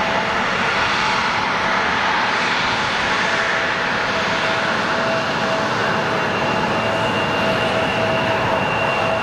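Embraer 175 jet engines (General Electric CF34 turbofans) running at taxi power: a steady rushing noise with a constant whine, and a higher whine that grows stronger about halfway through.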